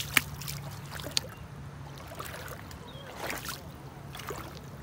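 Quiet sounds at the water's edge: a low steady hum that stops about two seconds in, two sharp clicks about a second apart, and faint water noise.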